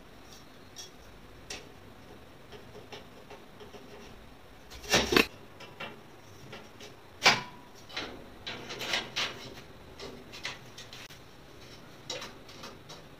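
Metal shelving posts and beams being handled and fitted together: scattered light clicks and knocks, with a louder clatter about five seconds in, a sharp knock a couple of seconds later, and then a run of knocks.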